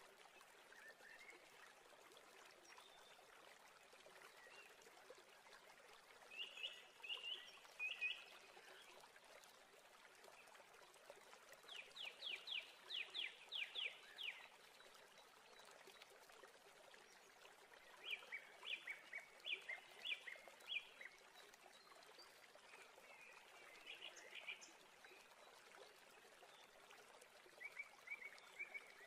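Faint small-bird chirping: short bursts of quick, high notes every few seconds over a low steady hiss.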